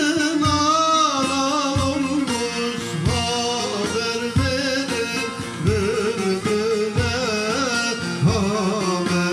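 A man singing a Turkish folk song, his voice bending and wavering, accompanied by a bağlama (long-necked saz lute) plucked in a steady rhythm.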